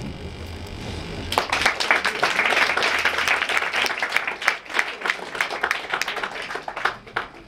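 Small audience applauding with hand claps. The clapping starts about a second in and dies away near the end.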